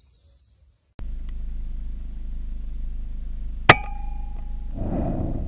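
A single shot from a Daystate Wolverine C Type .177 pre-charged pneumatic air rifle, a sharp crack with a brief ringing tone after it, over a steady low hum. A rustling noise follows about a second later.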